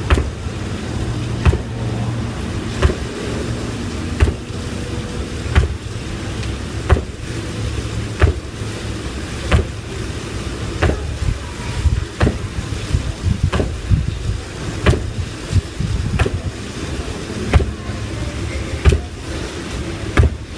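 Trainers landing on a tiled floor in squat jumps: an even rhythm of about fifteen thuds, one every second or so, over a steady low rumble.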